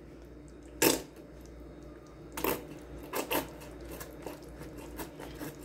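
Carton of cream being squeezed out into a metal saucepan of stroganoff, with a few sharp clinks against the pan about a second in and again near the middle, then lighter taps.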